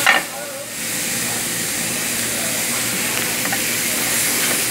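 Chicken, sliced onion and tomato sizzling in a frying pan over a gas flame, being tossed and stirred. A knock comes right at the start, then the sizzle drops for about half a second before settling into a steady hiss.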